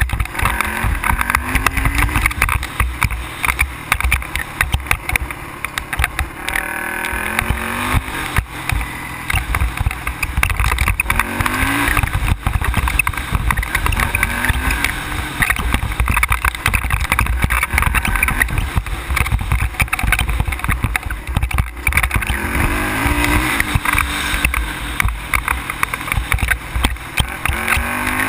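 ATV engine being ridden, revving up in short rising surges again and again, over a constant low rumble.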